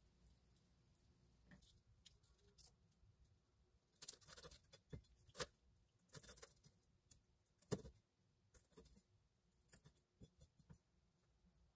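Kitchen knife cutting dried red chillies on a wooden cutting board: a run of irregular light taps and knocks, densest and loudest about four to eight seconds in.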